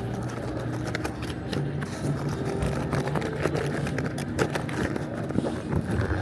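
Casino-floor background din, a steady mix of room noise with many scattered clicks and scrapes over a faint low hum.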